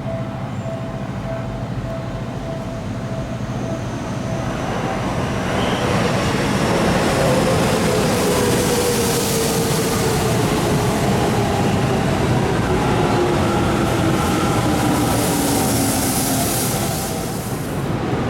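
Eight-car Seibu Shinjuku Line electric train pulling into the platform. The running noise swells about four seconds in, and its motor whine falls slowly in pitch as the train brakes.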